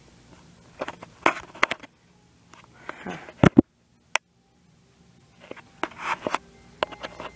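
Footsteps and handling bumps of a handheld camera being carried through the rooms of a house: irregular short knocks and clicks in a few clusters, with a sudden drop to total silence for about a second around the middle.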